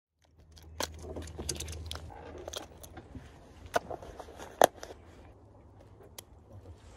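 Small metal fishing tackle (a jig and snap on the line) clicking and clinking as it is handled, with two sharper clicks about four seconds in. A low steady hum runs underneath.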